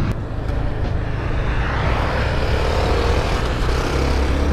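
Motorcycle engine running at a steady cruise while riding, with wind rushing over the microphone; the rushing noise swells about two seconds in.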